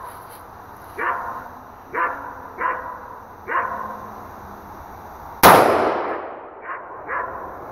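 A single shot from a 5.56 mm Smith & Wesson M&P15 rifle about five and a half seconds in, sharp and loud, its echo dying away over about a second. Before it a dog barks several times.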